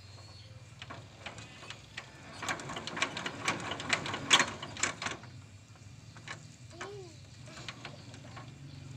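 Metallic clicking and clanking as the engine of a homemade diesel vehicle is handled, a quick run of clicks loudest from about two and a half to five seconds in, over a low steady hum.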